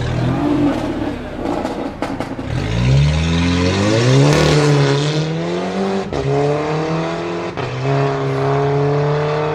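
Volkswagen Golf GTI's turbocharged four-cylinder accelerating hard away, the engine note climbing through the revs and dipping briefly at three upshifts before climbing again.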